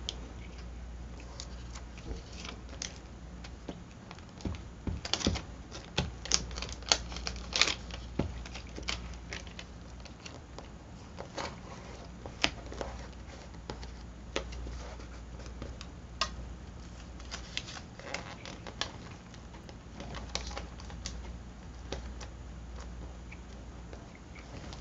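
Irregular light clicks and taps of paper cut-outs and a glue stick being handled and pressed onto a spiral-bound journal page, busiest about five to eight seconds in, over a faint steady hum.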